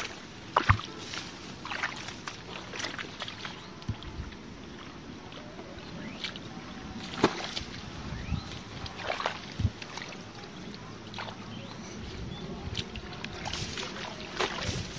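Hands and bare feet sloshing and splashing in shallow muddy water among marsh weeds, with scattered wet slaps and squelches as the mud is groped for fish; quicker wading splashes near the end.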